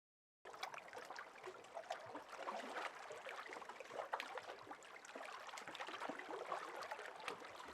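Water lapping and trickling over rocks, a steady faint wash full of small irregular splashes, starting about half a second in after a moment of dead silence.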